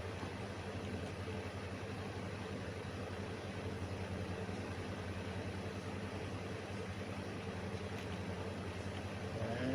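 Steady low background hum over a constant hiss, unchanging throughout, with a faint short sound just before the end.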